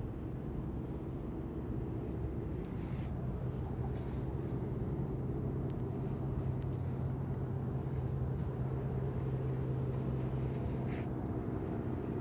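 Steady low mechanical hum holding one constant low tone, with a few faint ticks.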